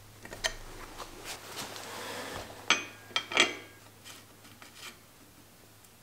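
Steel hand tools working on bicycle parts: scraping and rubbing, then three sharp metallic clinks with brief ringing near the middle, followed by lighter ticks. A pedal wrench is threading a pedal into the crank arm.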